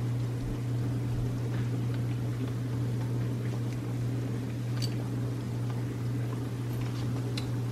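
Battered quail eggs sizzling as they fry in shallow oil, with metal tongs clicking against the pan a few times as they are turned. A steady low hum runs underneath.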